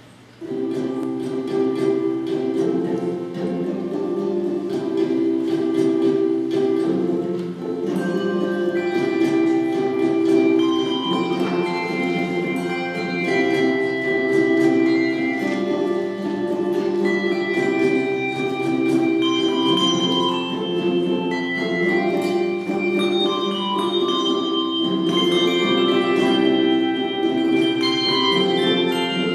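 Handbell choir ringing a piece, with held chords of lower bells under shorter, higher melody notes. It starts suddenly about half a second in.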